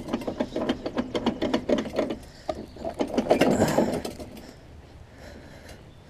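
Drive wheel of a Troy-Bilt self-propelled push mower turned by hand, its drive gear ratcheting in a rapid run of clicks that dies away after about four seconds. The wheel is suspected of slipping on its drive gear.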